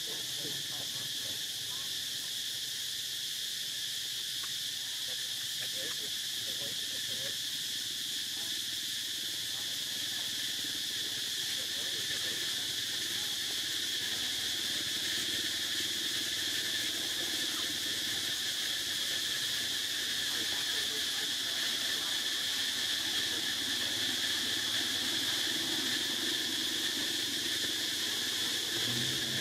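Insects droning steadily outdoors, a continuous high-pitched buzz that holds even throughout.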